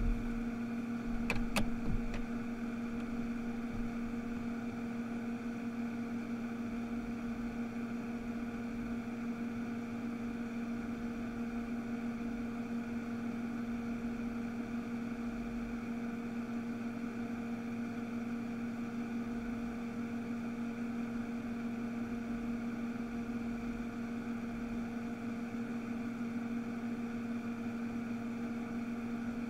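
Room tone: a steady electrical hum over a soft hiss, with a few faint clicks about a second and a half in.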